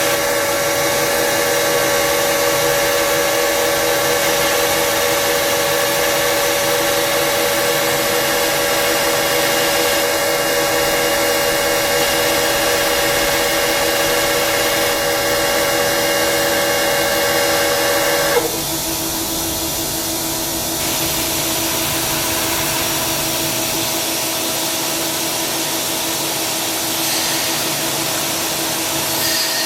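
Tsugami SS32 Swiss-type sliding-headstock CNC lathe running, a steady mechanical whine made of several steady tones over a hiss. About two-thirds of the way through, the loudest tone cuts off suddenly and the sound drops to a quieter steady hum with a different tone.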